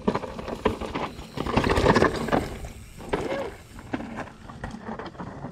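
Footsteps crunching and scuffing on dry, rocky dirt, with irregular clatter and rustling that is densest and loudest about two seconds in.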